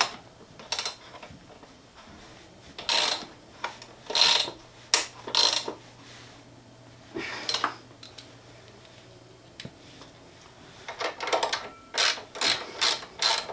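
Socket ratchet wrench clicking in short spells as bolts are tightened, with a quicker run of clicks near the end.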